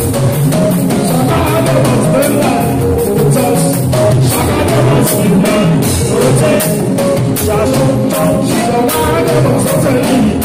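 Live Fuji band music: dense drumming and percussion keeping a steady beat, with singing over it.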